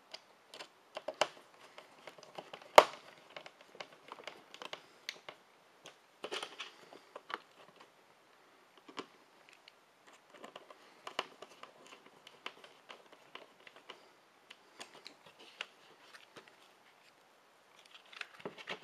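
Hands working a small screwdriver and handling a laser-cut plastic case: irregular light clicks, taps and scrapes, the loudest a sharp knock about three seconds in.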